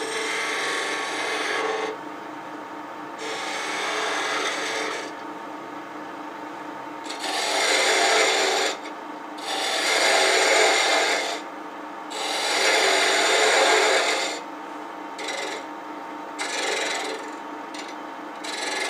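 Detail gouge cutting a hardwood spindle turning on a wood lathe, in repeated passes of one to two seconds, with the lathe's steady hum between cuts.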